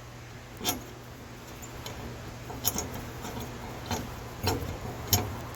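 A few separate sharp metallic clicks and taps from handling the steel cable hardware (bolt, nut and turnbuckle), over a steady low hum.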